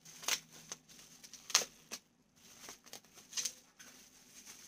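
Bubble wrap crinkling and rustling in several short bursts as hands unwrap a candle from it.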